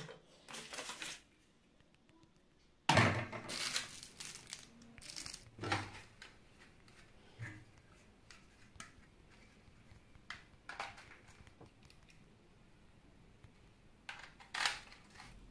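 Plastic parts of a toy rifle being handled and assembled: irregular clicks, rattles and rustling, busiest a few seconds in, as its bipod and scope are fitted.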